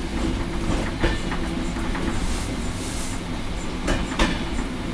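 Passenger train coach rolling along the track, heard from inside the last carriage: a steady low rumble broken by sharp wheel clicks over the track, two close together about a second in and another two near the end.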